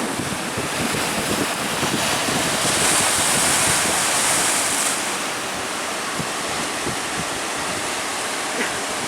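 Sea surf breaking and washing, with strong wind buffeting the microphone. A louder hissing wash swells about two and a half seconds in and eases off around five seconds.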